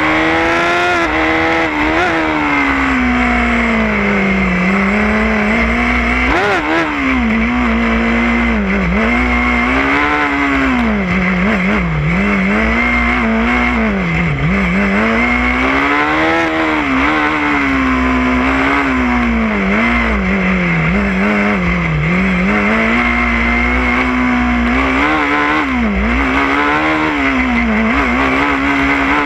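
Formula SAE race car's engine, heard close from the car itself, running hard with its revs rising and falling again and again as the car accelerates out of turns and slows for the next ones.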